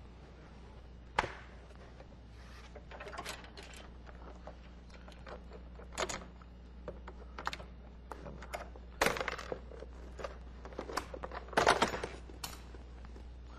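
Plastic retaining clips snapping loose as the leading-edge trim of a VW New Beetle convertible top is pulled down by hand: a scatter of sharp clicks and snaps, loudest in clusters about nine and twelve seconds in.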